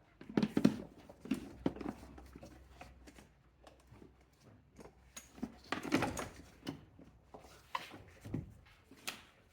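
Irregular knocks and clunks of a 12-volt car battery being handled and set down into its battery tray, its plastic case bumping the tray and bracket, with the loudest knocks about half a second in and about six seconds in and a sharp click near the end.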